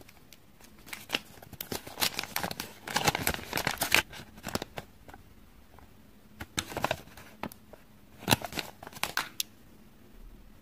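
Paper and small plastic parts of a Kinder Joy toy handled close to the microphone: crinkling and rustling of the paper sheets with sharp little clicks, in irregular bursts, busiest about two to four seconds in and again near seven and nine seconds.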